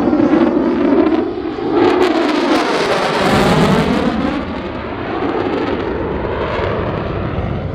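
Jet noise from an F-35A's single F135 afterburning turbofan as the fighter flies past. It swells about two seconds in, is loudest around three to four seconds, then fades, with a sweeping rise-and-fall in tone as it passes.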